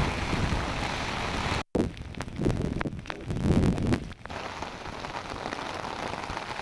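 Steady hiss of rain and running floodwater, cut off briefly about a second and a half in, with low rumbling bumps between about two and four seconds in.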